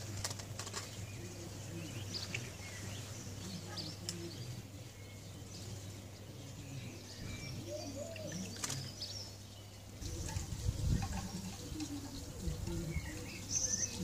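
Garden birds calling: scattered short, high chirps with a few soft, low murmuring calls, over a steady low hum; from about ten seconds in, low rumbling joins.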